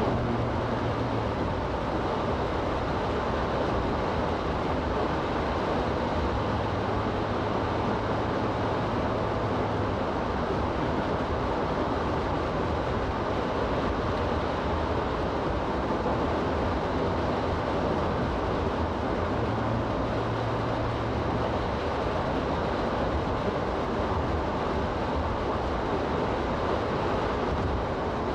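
Steady road noise inside a moving car: tyres running on a wet, slushy highway, with the engine's low drone underneath.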